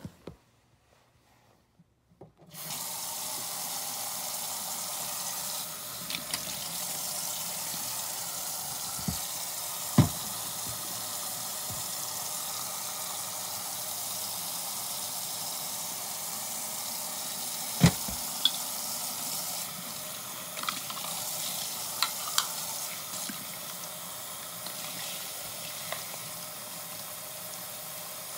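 Kitchen faucet running into a stainless steel sink while a glass bottle is rinsed out by hand, the water starting about two and a half seconds in and running steadily. A few sharp knocks stand out, the loudest about ten and eighteen seconds in.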